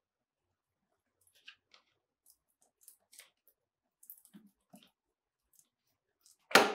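A Samsung Galaxy A9 cardboard retail box being handled and opened by hand: faint, scattered ticks and scrapes of fingers on cardboard as the lid slides off the base, then one short, louder bump of the box near the end.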